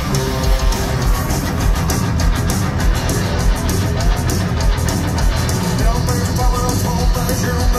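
Heavy metal band playing live: distorted electric guitars, bass guitar and drums.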